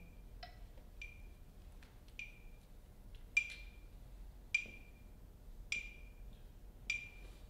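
Metronome clicking steadily at 52 beats per minute, one short ringing click about every 1.2 seconds, the clicks louder from about three seconds in.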